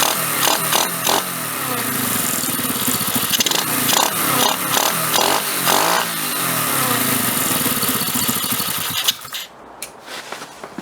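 Pit bike engine running and revving up and down, without the flywheel rattle now that the flywheel bolt has been tightened. It shuts off about nine seconds in.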